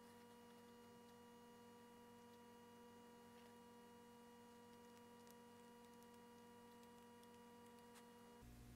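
Near silence: a faint steady electrical hum with a few faint ticks, the hum shifting lower near the end.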